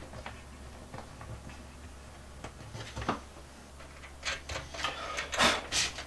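Wooden closet door being handled and pulled open against its magnetic latch: a single click about three seconds in, then a run of sharp clicks and knocks in the last two seconds, over a faint low hum.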